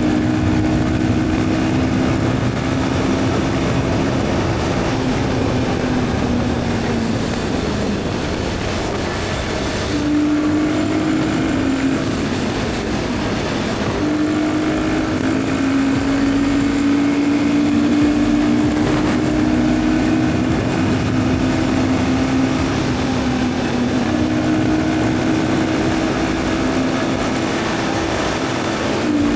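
Royal Enfield Guerrilla 450's single-cylinder engine running under way at highway speed, with rushing noise over it. The engine note holds steady for stretches and shifts pitch several times, dropping about eight seconds in and jumping up again about ten seconds in, as speed and throttle change.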